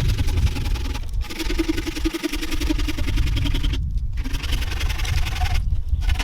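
Wood being sawn with a saw, a run of strokes broken by brief pauses about a second in, around four seconds in and near the end.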